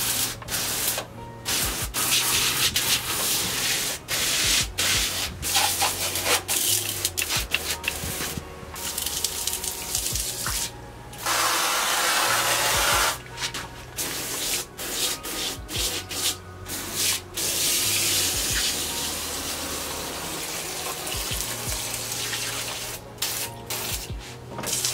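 Maruhachi hand-pump pressure washer spraying a jet of water onto the floor: a steady hiss and spatter that cuts out and starts again many times, strongest about halfway through.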